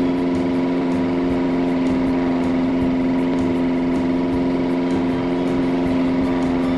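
Ceiling fan running with a steady electric motor hum and a faint ticking about four times a second.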